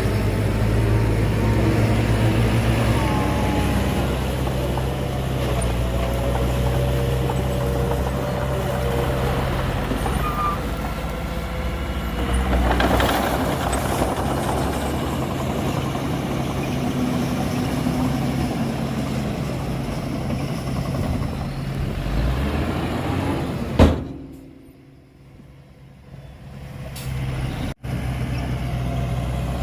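Heavy diesel earthmoving machinery running steadily at low revs, with a short hiss about 13 seconds in. A sharp click near 24 seconds is followed by the sound falling away for about three seconds before the engine hum returns.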